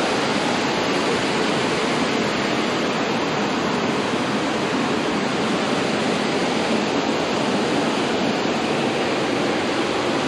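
Steady rush of water pouring into a canal lock chamber as it fills, churning and bubbling along the hull.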